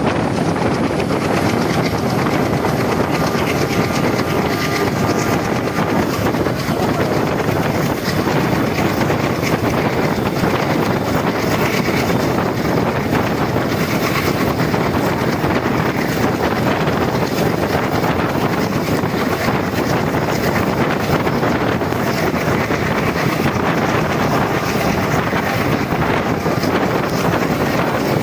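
Passenger train running along the track, heard from on board: a steady, loud rumble and rush of wheels on rails, with wind buffeting the microphone.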